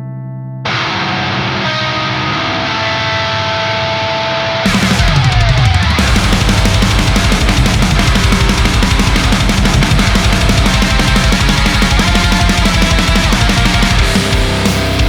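Heavy metal riff on a high-gain distorted electric guitar through the Lichtlaerm Audio Medusa, an HM-2-style pedal, with a Gehenna distortion pedal blended in, playing over a fast programmed drum track. The distorted guitar starts with a held chord under a second in. About five seconds in a falling slide leads into a full, loud riff with the drums.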